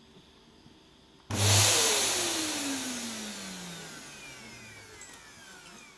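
Vacuum cleaner motor cutting in abruptly with a loud whoosh about a second in, then winding down, its whine falling steadily in pitch and fading over about four seconds.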